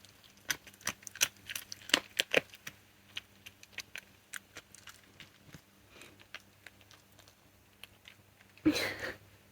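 Red fox chewing and crunching chicken wing bones: irregular sharp cracks and clicks, thick at first and sparser later, with a louder short rustling sound near the end.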